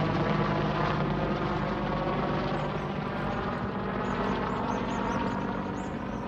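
Helicopter flying overhead: steady rotor and engine noise that grows gradually fainter as it moves away.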